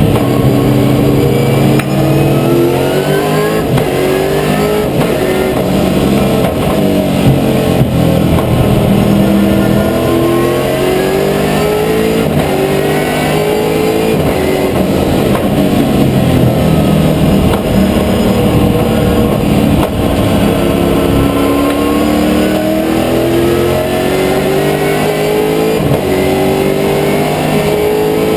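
V8 Supercar engine at full racing effort, heard from inside the car's stripped cabin. The note climbs through the revs, then drops back at each gear change or lift off the throttle, again and again.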